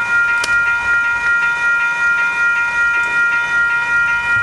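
Railroad crossing warning bell ringing on and on in quick repeated strokes, its high ringing tone held between strikes.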